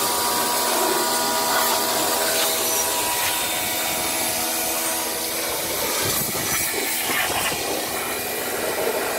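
High-pressure washer running steadily, with a continuous motor hum under the hiss of its water jet.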